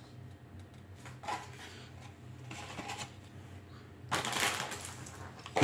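Grocery packaging being handled on a table: a few light knocks and soft rustles, then a louder crinkling rustle of packaging for about a second, about four seconds in.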